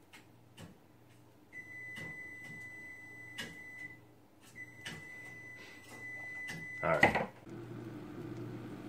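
A timer alarm sounding two long, steady high-pitched beeps of about two seconds each, over faint clock-like ticking. A short louder noise comes about seven seconds in.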